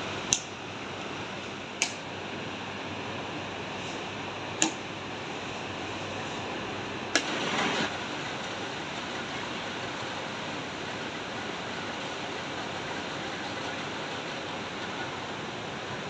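Steady fan-like workshop noise, broken by four sharp clacks in the first half and a short rush of noise just after the last one, from clay pieces and moulds being handled.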